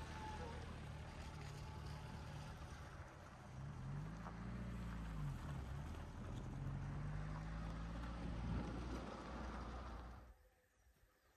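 SUV engine pulling a loaded trailer along a gravel track, with tyre noise and wind rush on a microphone held out of the window. The engine pitch rises and falls a few seconds in, and the sound drops away to near quiet about ten seconds in.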